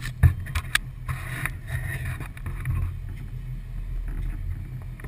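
Regal powerboat on choppy water: a low steady rumble under a rush of water, with a few sharp knocks in the first second.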